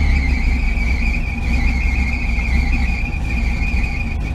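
Rover SD1 V8 running with its fan belt screaming, a steady high squeal over the low engine note, which fades out just before the end. The belt is slipping on the pulleys: the owner puts it down to the alternator now being under load, and the belt still needs adjusting.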